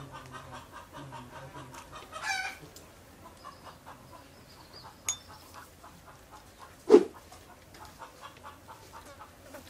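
Chickens clucking in a quick, repeated run, with one louder call about two seconds in. A sharp click comes near the middle, and a loud thump about seven seconds in.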